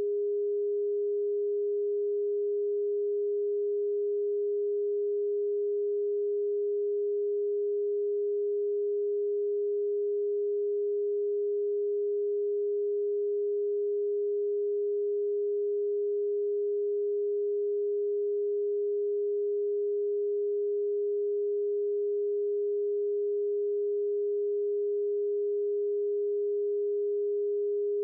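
A pure electronically generated sine-wave tone at a single steady pitch, held unchanged, played as a Rife frequency.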